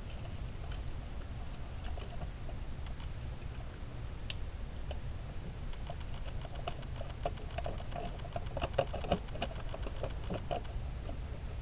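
Ratchet wrench clicking while bolts are loosened in an engine bay: scattered clicks and taps at first, then from about halfway a fast, even run of ticks at about six a second, over a steady low rumble.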